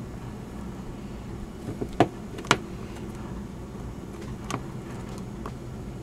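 Sharp clicks and snaps as a plastic spudger pries at the seam of a 5th-gen iPod's metal back case: two loud clicks about two seconds in, half a second apart, and a few fainter ones later.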